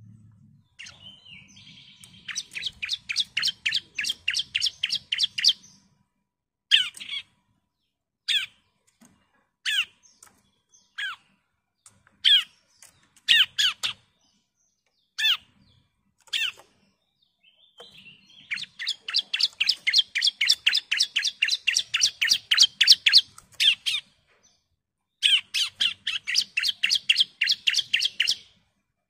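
Bar-winged prinia (ciblek) singing: runs of fast repeated chipping notes, about five a second and a few seconds long, with single falling notes spaced between the runs.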